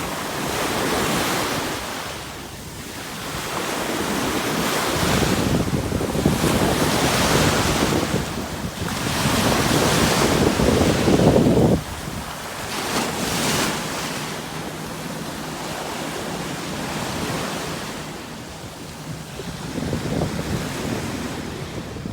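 Sea waves breaking and washing in, swelling and easing every few seconds. Wind rumbles on the microphone and stops abruptly about halfway through.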